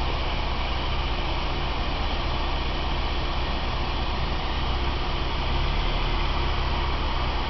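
Steady low rumble of a car engine idling under an even background hiss.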